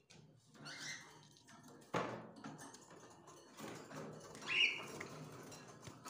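Cockatiels shuffling and scratching about on a wire cage floor, with a short chirp about a second in and another near five seconds. A sharp knock about two seconds in.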